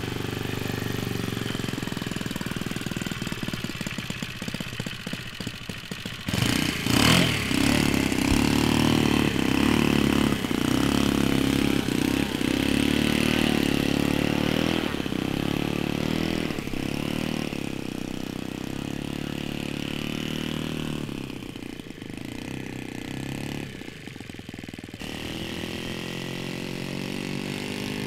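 Laser 80 four-stroke glow engine on a large model Fokker Eindecker running. It runs steadily at first, then louder from about six seconds in, its pitch rising and falling again and again as the throttle is worked.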